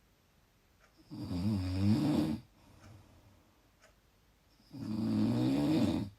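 A person snoring loudly: two long, wavering snores, one starting about a second in and the next about three and a half seconds later, with quiet between them.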